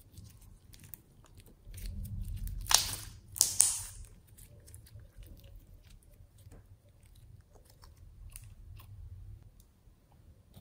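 Putty slime and store-bought slime being squeezed and kneaded together by hand: a run of small sticky clicks and pops, with two louder crackling squelches about three seconds in.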